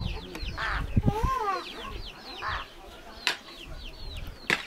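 Chickens calling: many short, high falling chirps throughout, with a longer rising-and-falling call about a second in. Two sharp knocks come near the end.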